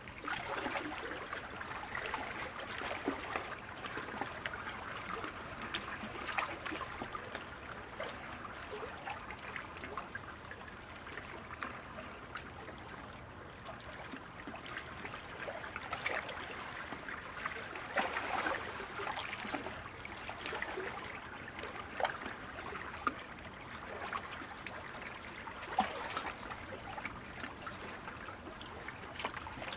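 Steady rush of moving water with small irregular splashes and a few louder splashes scattered through it.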